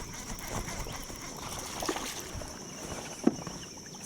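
A few short, sharp knocks and splashes as a hooked small shoal bass is fought and brought in, over a steady high-pitched drone. The loudest knock comes a little past three seconds in.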